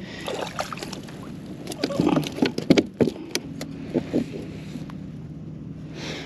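Knocks, clicks and rustling from handling a freshly caught sea robin aboard a kayak, busiest in the middle, with a few short low pitched sounds among them. A steady low hum comes in about halfway through.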